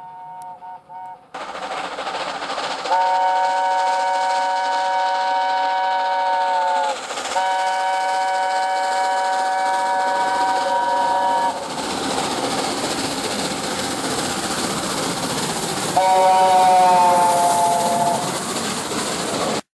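A train sounding two long blasts on its horn, about four seconds each, with a brief break between. Each blast is a chord of several steady notes. The rumble of the train running by follows, then a shorter third blast that falls slightly in pitch as the train passes.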